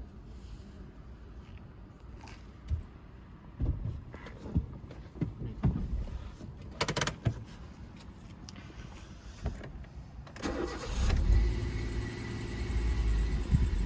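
Hyundai i10's 1.0-litre petrol engine starting about ten seconds in, then idling steadily. Before that come a few scattered knocks and clicks.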